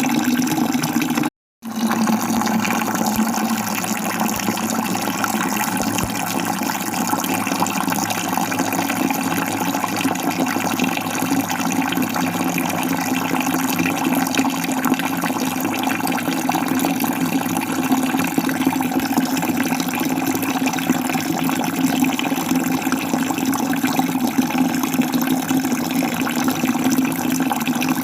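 Steady rushing of water falling in a waterfall. It cuts out to silence for a split second about a second and a half in, then resumes unchanged.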